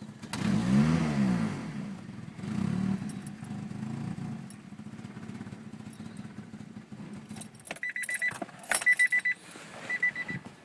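1989 Honda Accord's four-cylinder engine revved once up and back down, then settling into an idle that the owner calls rough, with the car still smoking after an oil change and valve cover gasket job. Near the end, a repeated high beeping with clicks and keys jangling.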